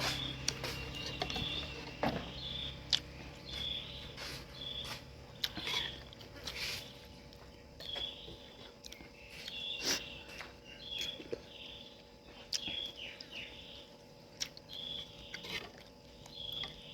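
A bird chirping over and over in short, high calls about once a second, with scattered sharp clicks.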